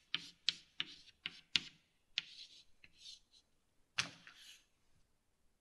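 Chalk on a blackboard: a quick run of sharp taps, then a few scratchy strokes, and one last hard tap about four seconds in, as equations are written on the board.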